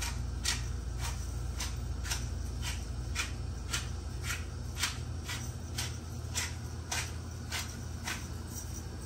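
Hand grinder being twisted over a pan, giving crisp short clicks about twice a second over a steady low hum.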